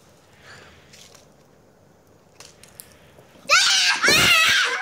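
Two young girls break into loud, high-pitched shrieks about three and a half seconds in, after a quiet stretch with only faint soft ticks. They are shrieking at the popping candy crackling in their mouths.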